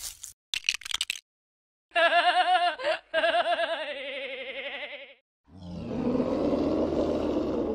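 Added cartoon sound effects for a stop-motion animation. A few quick clicks come first, then a wavering, wobbling cartoon cry of about three seconds, and then a rough, low rumbling noise near the end.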